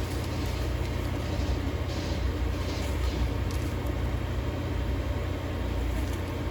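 Steady low background rumble, with no clear separate event standing out.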